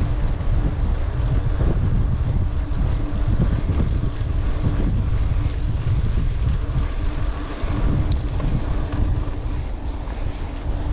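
Wind buffeting the microphone on a fast mountain-bike descent, over a steady rumble and scattered knocks and rattles from the bike rolling over rough trail. A faint steady hum runs underneath, and there is one sharp click about eight seconds in.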